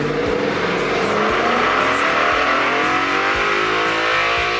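2011 Mustang GT's 5.0-litre V8 revving up at wide-open throttle on a chassis dyno, its pitch climbing steadily through the rev range as the nitrous kit is feeding it. Background rock music plays over it.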